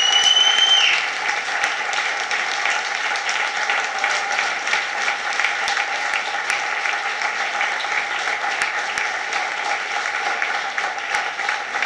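Theatre audience applauding steadily, with one high, steady whistle from the audience over the first second.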